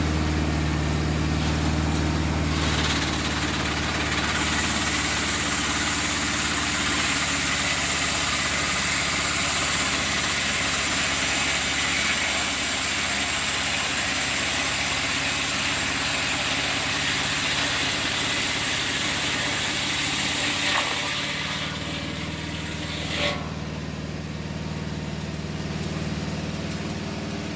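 Engine-driven saw milling a cedar log: the engine runs steadily for a couple of seconds, then cuts through the wood under load for about eighteen seconds, then drops back to a steady run. There is one sharp knock a couple of seconds after the cut ends.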